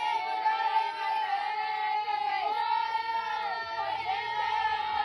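A group of girls' high voices singing a team cheer together, holding long notes that overlap and bend in pitch.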